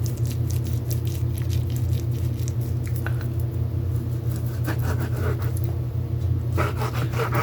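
Raw chicken breast being pressed and patted flat by hand on a board: soft wet squishing and light pats, with rougher handling noises near the end, over a steady low hum.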